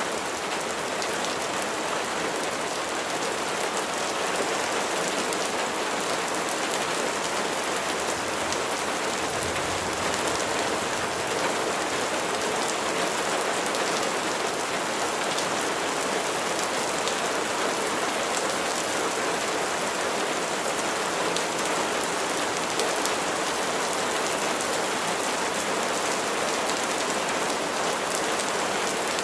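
Steady rainfall, with a dense patter of raindrops hitting a surface.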